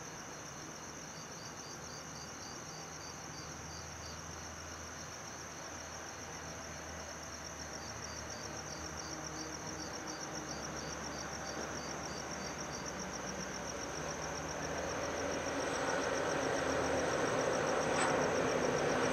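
Crickets chirping in a fast, even pulse. Over the last few seconds the low rumble of three G class diesel locomotives running light engine grows louder as they approach.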